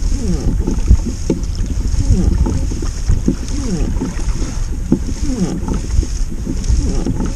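Wind buffeting the microphone in a heavy low rumble, over running water with a steady hiss and a constant gurgling.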